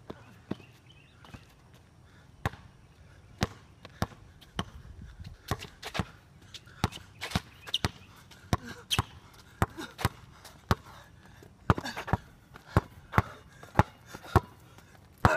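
Basketball dribbled on a concrete court: sharp single bounces about once a second at first, quickening to about two a second in the second half.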